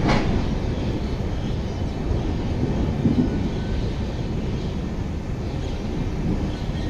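LHB passenger coaches of an arriving express train rolling slowly past along the platform: a steady low rumble of wheels on rail, with a sharp clack at the very start.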